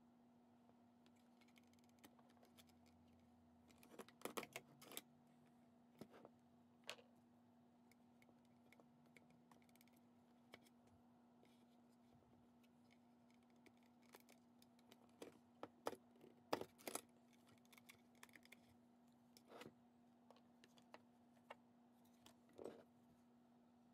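Faint, scattered clicks and taps of paper cards being handled and fitted into a Zutter Bind-It-All binding punch, coming in small clusters a few seconds apart. A faint steady hum runs underneath.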